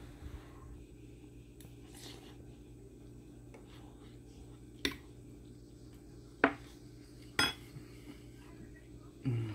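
A spoon clinking against a cooking pot three times, sharp single clinks a second or so apart, over a faint steady hum.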